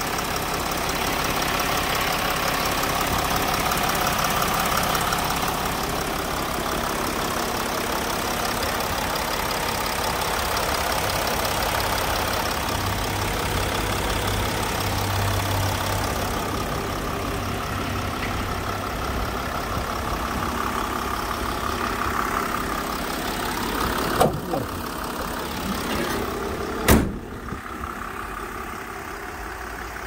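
Mercedes Sprinter 519 CDI's V6 diesel idling steadily with the bonnet open. A click comes near the end, then a sharp bang as the bonnet is shut, after which the idle is quieter and muffled.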